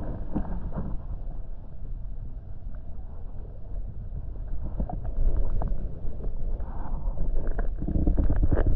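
Muffled underwater sound of a shallow tide pool, picked up by a submerged camera: a low rumble of moving water with scattered faint clicks and ticks, growing louder near the end.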